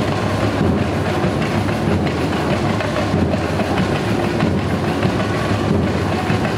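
A samba bateria (Brazilian percussion band) playing a steady, dense groove: bass surdo drums under snare drums and hand percussion.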